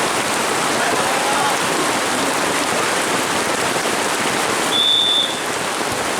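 Heavy rain falling steadily, with a brief high whistle-like tone about five seconds in.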